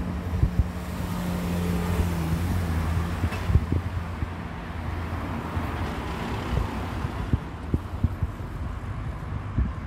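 Road traffic: a motor vehicle's engine hum with road noise, swelling over the first few seconds as it passes and then easing off, with scattered short low knocks.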